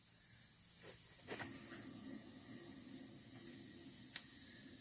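Crickets chirping steadily in a continuous high-pitched drone. A faint low hum comes in about a second and a half in.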